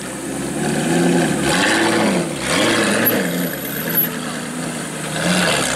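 Supercar engine being revved: its pitch rises and falls in several quick arcs in the first three seconds, then runs steadily, with one short blip near the end.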